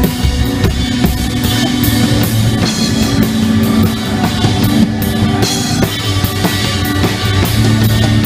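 Band playing rock-style music with a full drum kit, bass drum and guitar, loud and steady: a band sound check.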